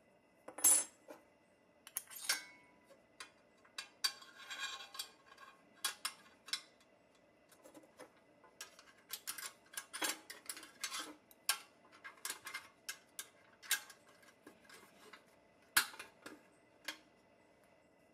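Thin steel reproduction Tonka tandem wheel plates clinking and scraping against a pressed-steel toy truck frame as they are handled and fitted. It is an irregular series of light metallic clicks and taps, with a sharper clink about a second in and another late on.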